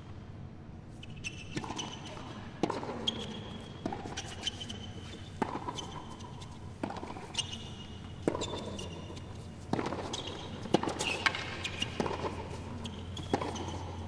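Tennis rally on a hard court: racquet strikes on the ball come roughly every second and a half, with the ball's bounces between them.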